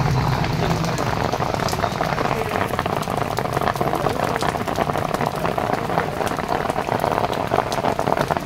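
Steady rain, a dense, even crackling patter of drops.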